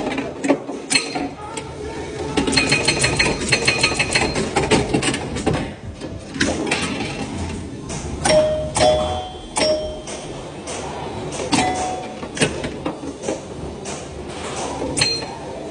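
Antique pinball machine in play: flippers and solenoids clacking, and scoring bells ringing. About two and a half seconds in comes a fast run of clicks and bell tones lasting a couple of seconds, and a few more separate bell tones ring later on.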